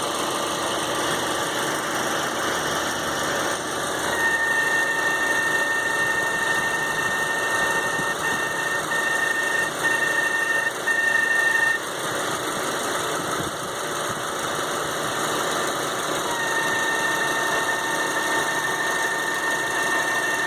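Chevrolet Prisma 1.4 engine idling, with a steady high-pitched whine that comes in about four seconds in, breaks up and stops around twelve seconds, then returns. The noise is attributed to a faulty water pump.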